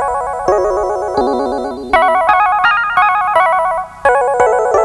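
Background music: an electronic keyboard tune played with a wavering vibrato, in short phrases of stepped notes, a new phrase starting about two seconds in and another near the end.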